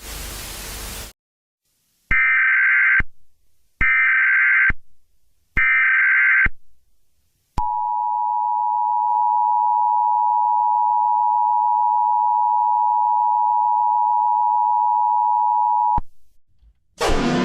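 About a second of static, then three short bursts of Emergency Alert System SAME header data tones, then the EAS two-tone attention signal held steadily for about eight seconds before it cuts off. Another loud sound starts just at the end.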